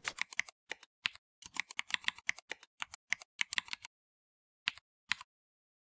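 Typing on a computer keyboard: a run of quick, uneven keystrokes for about four seconds, then two single key presses a moment later.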